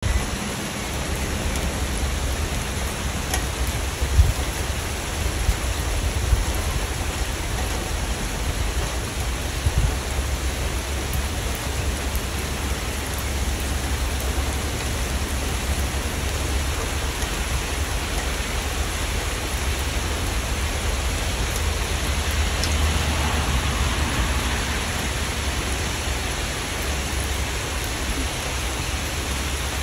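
Steady rain falling: a dense, even hiss with a low rumble underneath and a few sharper, louder taps in the first ten seconds.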